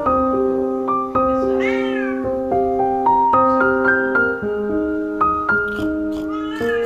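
Background piano music playing steady notes, with a cat meowing twice: one drawn-out meow about a second and a half in and another near the end.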